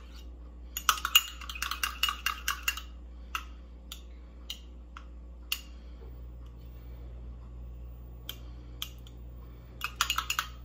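A metal spoon clinking against the inside of a small porcelain cup while stirring melted gelatin: a quick run of clinks about a second in, scattered single clinks, then another quick run near the end.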